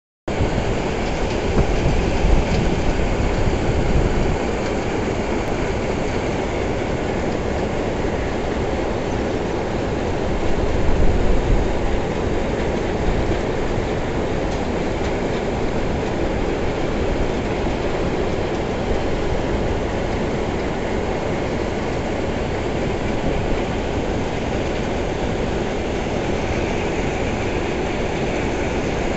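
Larsen & Toubro bucket-wheel stacker-reclaimer running while reclaiming coal: a steady mechanical rumble and rattle of the machine and its conveyor. The rumble swells louder for a moment a couple of seconds in and again about ten seconds in.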